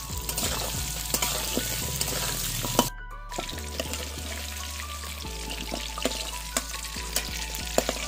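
Carrot and potato pieces sizzling as they fry in hot oil in an iron kadai, with a metal ladle stirring and clinking against the pan. The sound drops out briefly about three seconds in.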